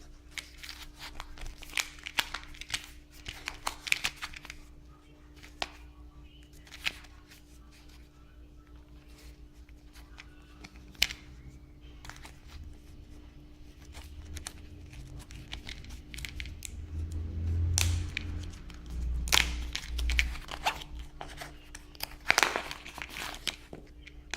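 Packaging being torn open and crinkled by hand: irregular crackling in clusters, busiest in the first few seconds and again near the end, with a few low handling thumps toward the end.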